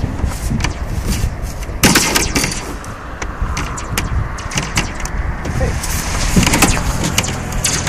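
Sheet-metal roll-forming machine running, with a steady low rumble and repeated metallic clanks and clicks as the panel feeds through its forming stages.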